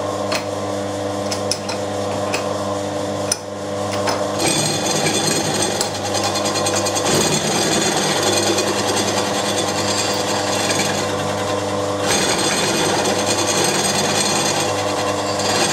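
Milling machine running with a large milling cutter taking a gentle cut across welded-up aluminium on an engine mount. A steady motor hum runs throughout, with a few ticks in the first seconds. From about four seconds in, a harsh, high cutting noise joins the hum, then eases off at around twelve seconds.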